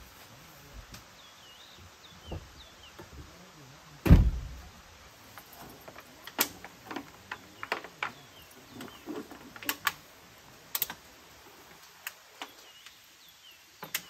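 A loud, heavy thump about four seconds in, then a string of light clicks and knocks as camping gear and a cloth cover are handled at the open rear of an SUV.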